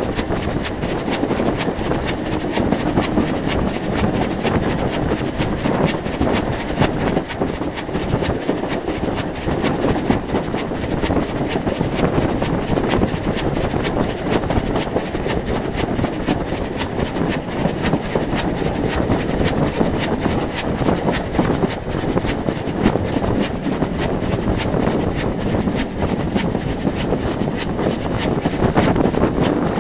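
Rebuilt Bulleid Battle of Britain class steam locomotive running along the line with a steady, rapid clatter, mixed with wind rushing over the microphone.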